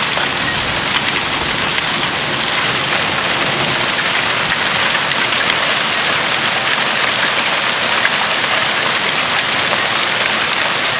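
Pea-sized hail and rain falling hard, a steady dense hiss of countless small hits on the ground.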